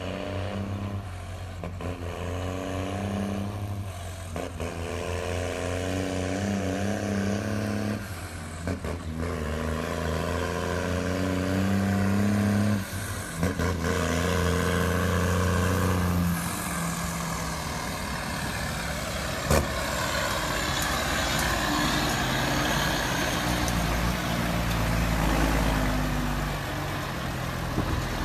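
Diesel engines of New Holland T7 tractors running and revving, a deep steady rumble that dips briefly every few seconds. About halfway through it gives way to a louder rushing engine sound, with one sharp click a few seconds after that.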